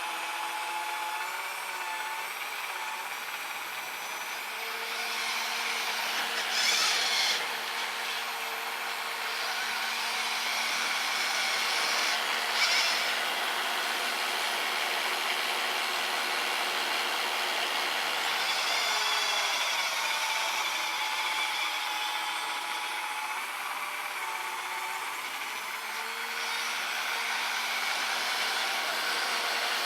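Small brushed electric motors of an RC snowblower and truck whining steadily over a gritty hiss, their pitch shifting up and down as the load changes. Two brief louder bursts of hiss come about 7 and 12 seconds in.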